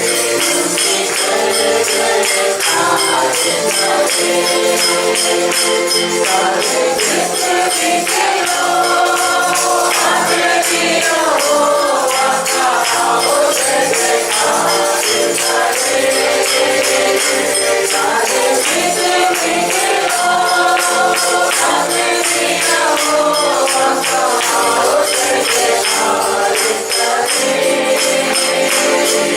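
Church worship music: a tambourine shaken in a steady beat under a melody, with a group singing along.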